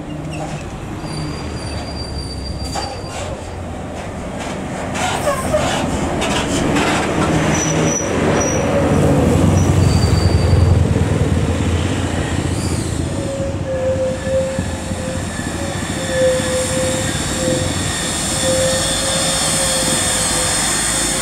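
Large diesel tour bus working up a steep climb and passing close, its engine swelling to its loudest about ten seconds in. A run of sharp clicks comes before it, and a steady high-pitched whistling whine runs through the second half, the jet-like exhaust note.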